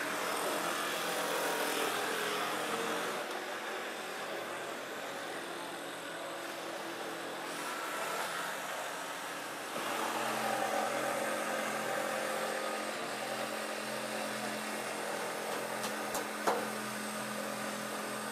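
Cordless jigsaw cutting a wooden board, over a steady mechanical hum and clatter. It gets louder about ten seconds in, and there is a single sharp knock near the end.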